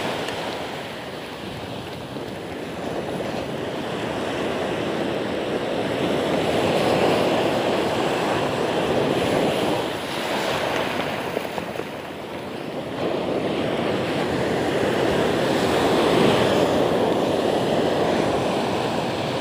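Sea surf breaking and washing in at the water's edge, a steady rush that swells and falls back over several seconds.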